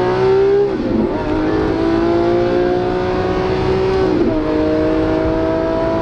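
Citroen C1 engine accelerating hard through a decatted exhaust, rising steadily in pitch. The pitch dips sharply about a second in and again about four seconds in.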